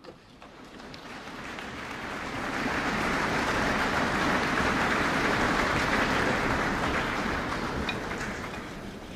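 Large audience applauding, swelling over the first few seconds and dying away near the end.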